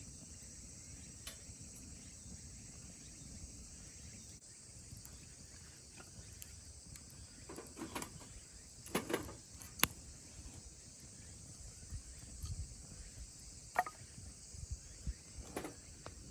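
A steady high-pitched chirring of insects, such as crickets, runs throughout. Over it come a few short, sharp clicks and knocks in the second half, loudest about halfway through.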